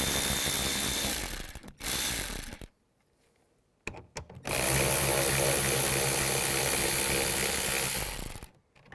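Power driver spinning a 10 mm socket to back out door trim screws. It runs in three bursts: one stopping about two seconds in, a short one right after, and a longer steady run from about halfway to near the end.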